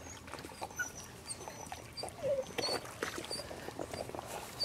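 A puppy swimming through pond water with a retrieving bumper in its mouth, with irregular small splashes from its paddling. A short whine from a puppy comes about two seconds in, among faint high chirps.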